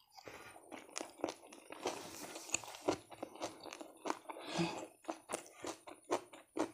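Close-up chewing of a mouthful of kimbap (seaweed rice roll), with irregular crisp crunches several times a second.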